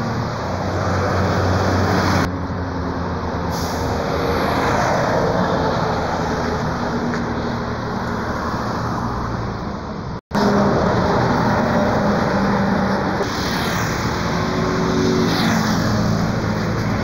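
City buses' diesel engines running as they pass on a road, mixed with traffic and tyre noise. The sound changes abruptly twice, about 2 and 10 seconds in.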